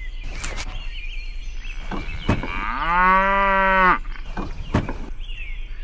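A cow mooing once, a single long moo lasting a little over a second about two and a half seconds in, which is the loudest sound here. A few short light knocks come before and after it.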